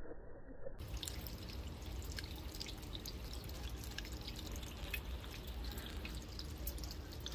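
Rainwater running down a rain chain of small metal cups, trickling and dripping from cup to cup with many quick splashes.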